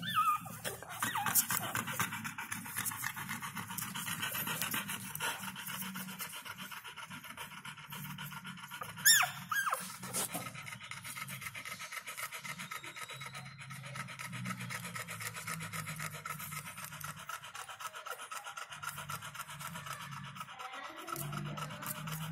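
Newborn puppies nursing, with high squeaks and whimpers, the loudest a sharp squeal about nine seconds in, over the mother dog's steady panting.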